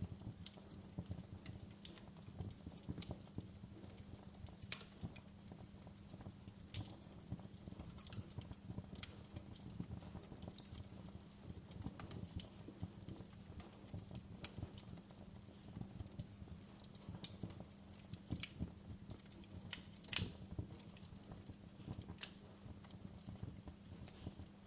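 Fire crackling in a fireplace: irregular sharp pops and snaps over a low rumble, with the loudest pop about twenty seconds in.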